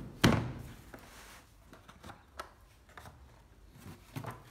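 A sharp knock just after the start, then faint rustling and a few small clicks of objects being handled.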